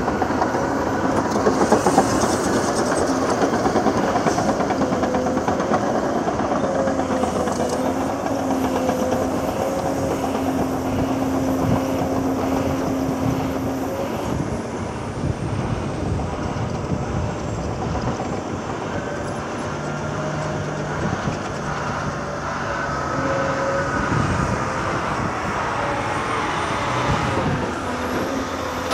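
Heavy diesel earthmoving machinery working: a Caterpillar 390D excavator and Caterpillar 773D dump trucks running steadily, with a held, slightly wavering engine hum and occasional clanks.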